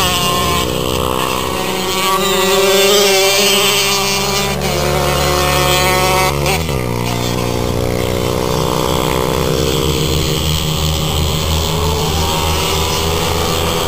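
Several racing motorcycle engines running hard around a short-circuit track, their pitches overlapping and rising and falling, with one sharp drop and climb about six and a half seconds in.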